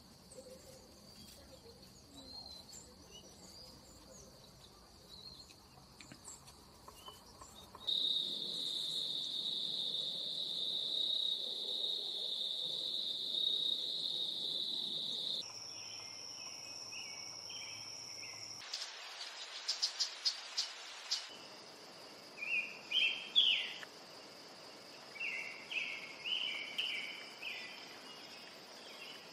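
Insects trilling steadily in the background, the high trill changing pitch abruptly a few times. About two-thirds in, a fast pulsing buzz lasts a couple of seconds. After it come groups of short high chirps, the loudest sounds here.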